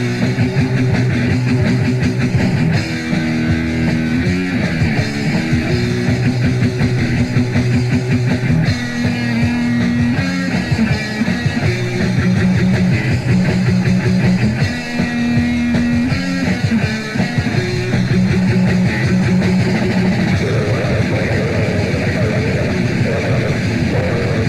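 Loud rock music with distorted electric guitar, played on without a break.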